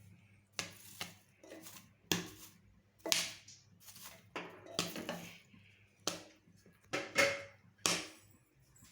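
Popcorn kernels popping inside a closed pressure cooker, sharp irregular pops striking the metal about once or twice a second. The popping has slowed, the sign that the batch is nearly done.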